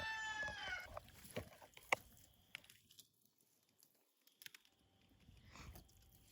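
A rooster's crow trailing off in the first second, followed by faint, scattered clicks and crackles.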